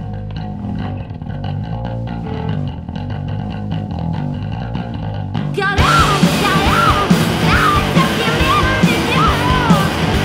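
Live rock band playing: bass guitar and drums carry a low groove, then about five and a half seconds in the whole band crashes in louder, with cymbals and distorted guitar.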